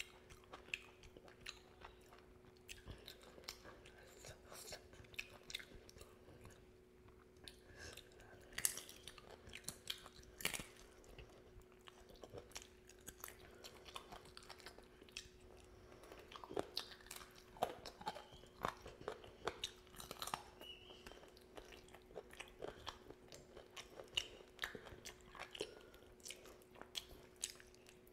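Close-miked eating: chewing, lip smacks and small crunchy bites as a man eats rice and curry with his fingers, in many short sharp clicks that come thicker in the second half. A faint steady hum runs underneath.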